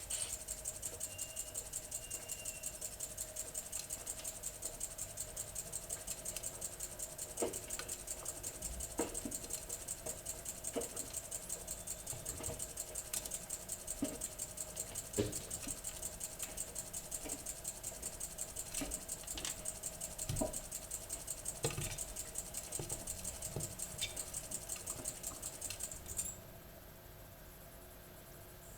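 AEG Öko-Lavamat 85769 washing machine running, with a fast, even high-pitched pulsing and scattered soft knocks. The pulsing cuts off suddenly near the end, leaving a quieter steady hum.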